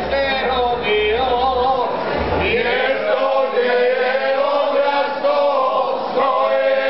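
A group of men singing a Croatian folk song (bećarac) together, unaccompanied and full-voiced, settling into long held chorus notes about halfway through.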